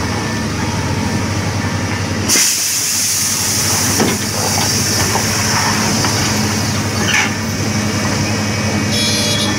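Heavy diesel engines of a Scania dump truck and a Caterpillar excavator running steadily. About two seconds in, a loud steady hiss breaks out as a jet sprays from low at the truck's front, like air or fluid escaping under pressure from a burst line.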